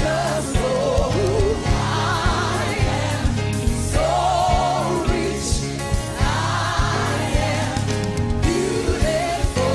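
Gospel music with choir singing over bass and a steady drum beat, with a woman singing along to it.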